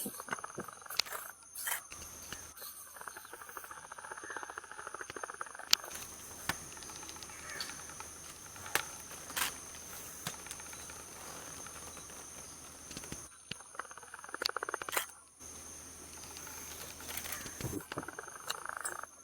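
Forest insects: two steady high-pitched drones, with stretches of fast rasping buzz that come and go, and scattered sharp clicks.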